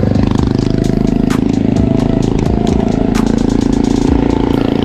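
Small motorcycle engine running close by as the bike passes and pulls away up the hill, a steady low drone with a few sharp clicks over it.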